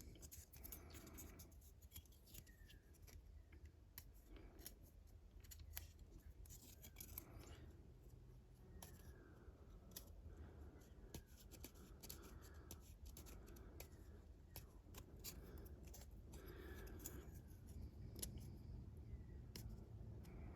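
Faint, repeated small clicks and short scrapes of plastic model-kit parts being trimmed and cleaned up where they were joined to the sprue.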